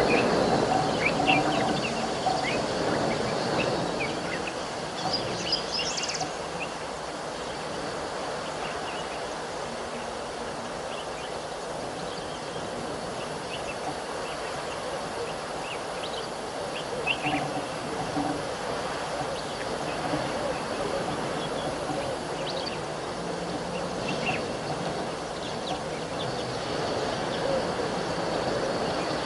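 Outdoor bush ambience: a steady rushing background noise with short bird chirps scattered through it and a faint, high, steady tone. A louder low hum in the first few seconds fades away.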